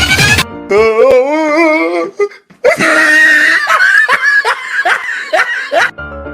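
Comedy laughter sound effects: a wavering, warbling laugh followed after a short pause by a longer burst of repeated laughing pulses. A snatch of music ends it near the close.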